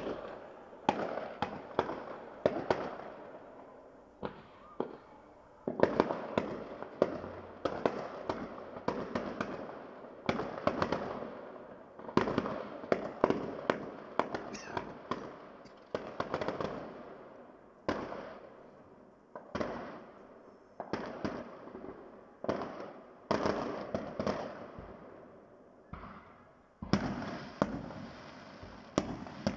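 Fireworks display: shells bursting in quick, irregular succession, dozens of sharp bangs, each trailing off in an echo.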